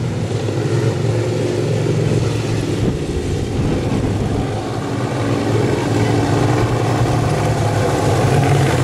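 Several racing riding lawn mowers' small engines running hard together, a steady mix of overlapping engine notes that grows a little louder near the end as the pack comes closer.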